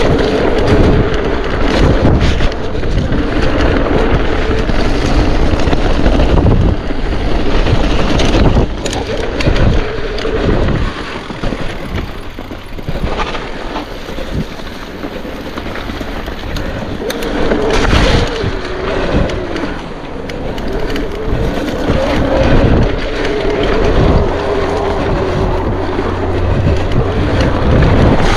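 Mountain bike ridden fast down a trail: tyres rumbling over gravel and rocks, with the bike rattling over the bumps and wind buffeting the microphone. It eases off for a few seconds near the middle.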